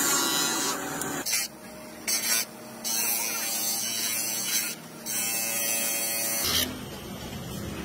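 Electric bench buffer motor running steadily while a plastic tail light lens is pressed against its spinning wheel, with a high hiss of plastic being ground that breaks off briefly a few times.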